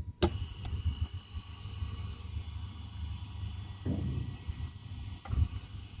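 A click as a push button on the solar trough tracker's control panel is pressed, then the trough's drive motor starts and runs with a steady high whine over a low rumble.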